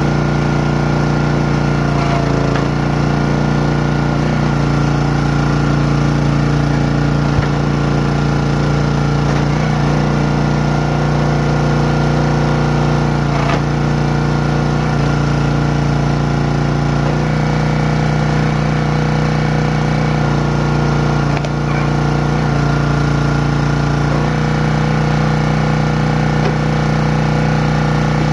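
Single-cylinder gas engine of a Champion 27-ton log splitter running steadily at working speed. Its tone shifts several times as the hydraulic ram is loaded while splitting a log round.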